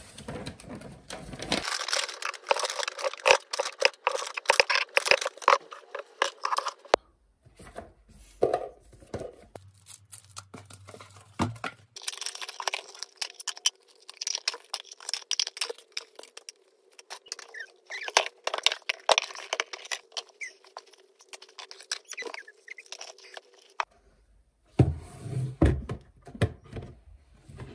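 Paper shopping bags and packaging being handled: rustling and crinkling, with many small clicks and light knocks as things are moved around on cupboard shelves. A few duller thumps near the end.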